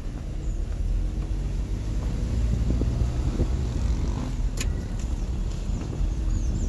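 Car driving, heard from inside the cabin: a steady low rumble of engine and tyres on the road, with a brief click about four and a half seconds in.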